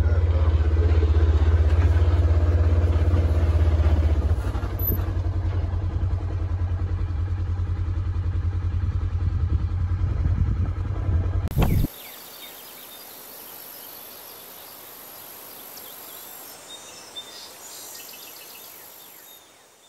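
A vehicle engine idling with a steady low hum, cutting off abruptly about twelve seconds in. Quiet outdoor ambience with faint bird chirps follows.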